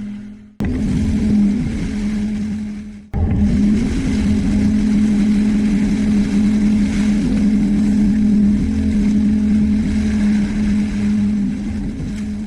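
Excavator-mounted mowing and mulching head running hard with the excavator's engine, a steady hum with a strong drone and low rumble. The sound cuts out abruptly twice in the first three seconds, then runs on steadily.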